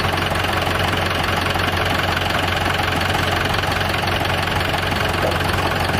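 Mahindra tractor diesel engines idling steadily.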